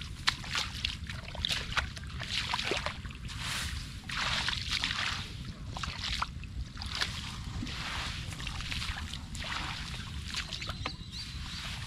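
Shallow muddy water sloshing and splashing in irregular bursts, about one a second, as hands and legs move through a flooded rice field, with small clicks over a steady low rumble.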